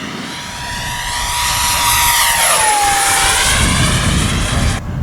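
Electric ducted-fan RC jet, a model Cessna A-37 Dragonfly, making a pass: the fan whine grows louder, then drops in pitch as it goes by about two and a half seconds in, with a low rush underneath. The whine cuts off sharply near the end.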